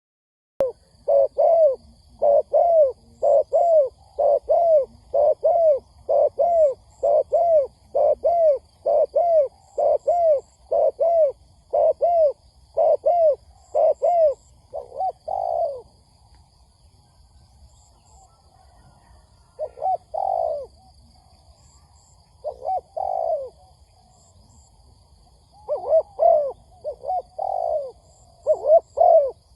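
Spotted dove cooing in quick runs of short arched coos, about two a second. The run breaks off about halfway, with only a few longer coos for several seconds, then the quick coos start again near the end. This is the rapid cooing of a decoy dove used to lure wild doves.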